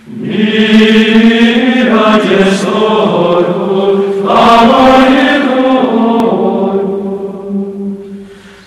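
Chanted vocal music: voices holding long notes over a steady low drone, with new phrases coming in about two and four seconds in, fading out near the end.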